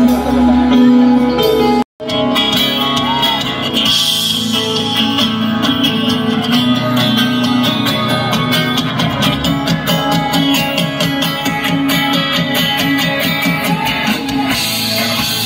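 Live band music with guitars, played loud over a concert sound system. The sound drops out for an instant about two seconds in.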